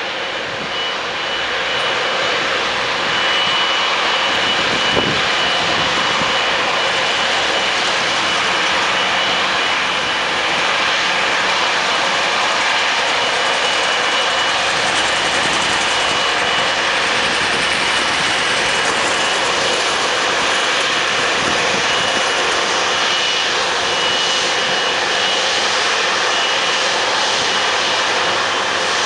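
Boeing 777-200's twin General Electric GE90 turbofans running at taxi power: a steady jet rush with a thin high whistle that comes and goes.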